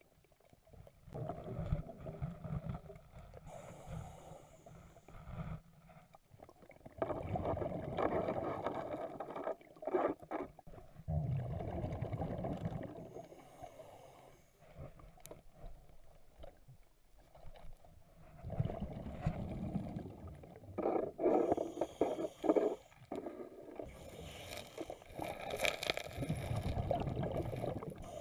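Scuba diver breathing underwater through a regulator: a hiss on each inhale, then a low bubbling rumble as the exhaled air streams out, repeating every several seconds.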